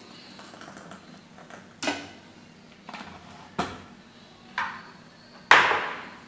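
Glassware and kitchen utensils knocking and clinking on a work surface: about five separate knocks a second or so apart, the last one the loudest.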